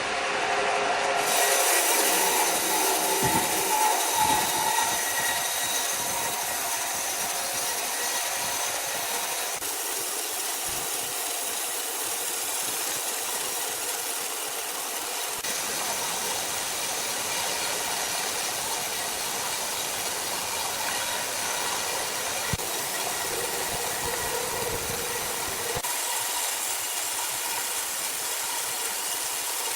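Power saw cutting wood, a steady noisy whir whose tone shifts abruptly a few times.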